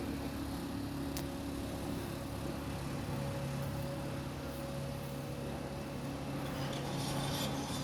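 An engine running steadily: a constant low hum that holds its pitch, with a single short click about a second in.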